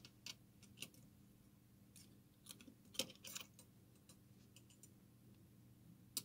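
Near silence with a faint steady hum and a few small, scattered clicks and taps, the clearest about three seconds in and just before the end.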